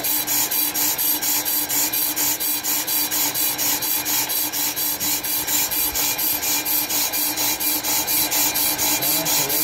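Pro-Cut PFM 9.2 on-car brake lathe turning a brake rotor while its cutting bits scrape across the braking surface. The scraping pulses evenly about four or five times a second, over a steady motor hum, as the cut takes down the rotor's high spot.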